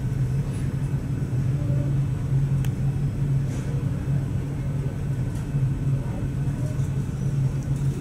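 Steady low drone and rumble of a large ferry under way, its engines and machinery heard inside the ship's cabin.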